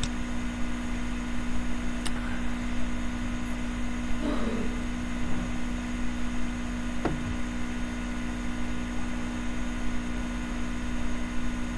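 Steady electrical hum and hiss of the recording setup, with two faint clicks about two and seven seconds in.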